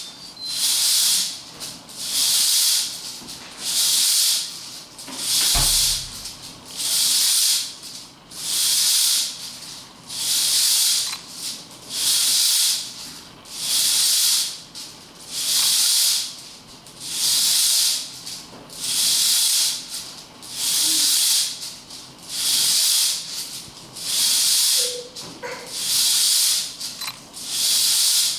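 Hula hoop swishing round and round, one whoosh with each turn, coming evenly about every second and a half. There is a brief low thump about six seconds in.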